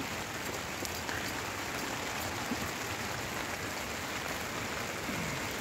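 Steady heavy rain, an even hiss.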